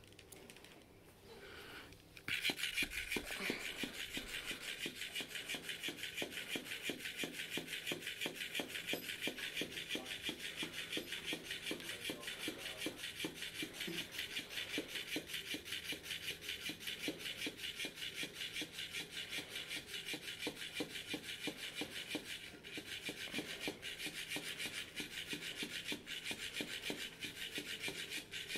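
Electric flopping fish cat toy wiggling and rasping against the wood of a rocking chair in a fast, even rhythm, starting suddenly about two seconds in.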